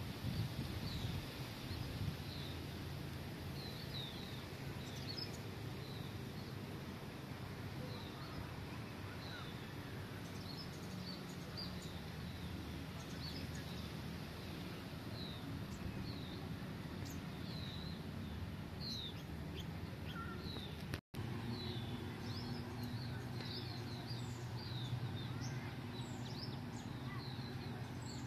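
Small birds chirping over and over in short high notes, above a steady low outdoor rumble. The sound cuts out for an instant about two-thirds of the way through.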